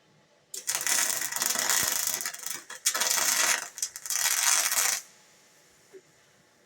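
Electric welding arc crackling and sizzling in three runs of a few seconds, the arc breaking off briefly twice between them and stopping about five seconds in.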